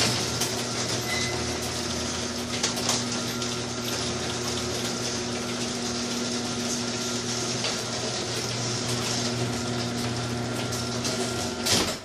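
Old garage door opener running, closing a wooden sectional garage door: a steady motor hum with continual rattling and clatter from the door and track. It stops abruptly near the end as the door shuts.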